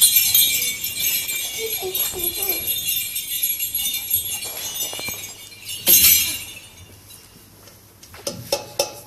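Metal jingles of a small hand-held frame drum rattling as it is shaken, with a sharp shake about six seconds in before the rattle dies down. Separate drum strokes begin near the end.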